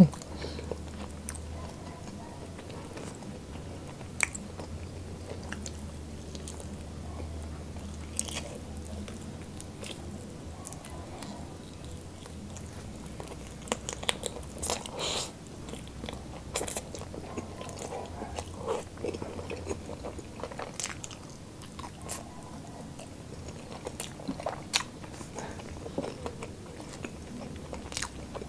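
A person eating spicy buffalo chicken wings close to the microphone: irregular bites and chewing with short sharp crunches and mouth clicks, busiest around the middle and again near the end.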